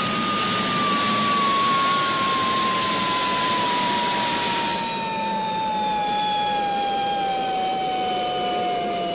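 Sound effect of a rocket ship's landing thrusters: a steady jet hiss under a whine that slowly falls in pitch as the ship descends, the hiss thinning about five seconds in.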